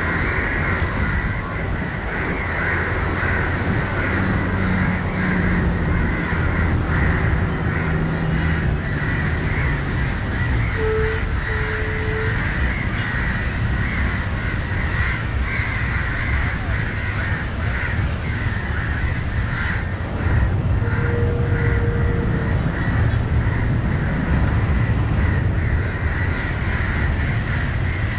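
Crows cawing over and over, mobbing a dog that is approaching a crow on the ground, over a steady low rumble.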